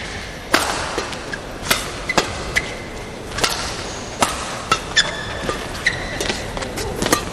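Badminton rackets striking a shuttlecock in a fast rally, a string of sharp cracks every half second or so, with short high squeaks from players' shoes on the court.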